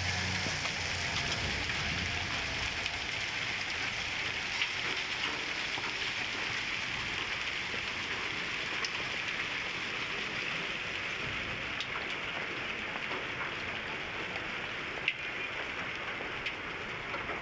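Heavy rain mixed with sleet pouring down on a street, a steady hiss with a few sharp ticks scattered through it.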